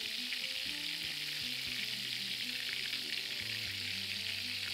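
Steady sizzling hiss of oil frying in a pan on the hob, together with boiling water poured from an electric kettle onto spaghetti in a steel strainer.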